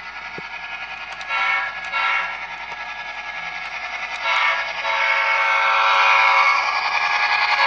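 Model train locomotive's electronic sound system sounding its horn as the train approaches and passes: two short blasts, a third a couple of seconds later, then a long held blast, over the soft steady running noise of the train on the track, growing louder as it comes close.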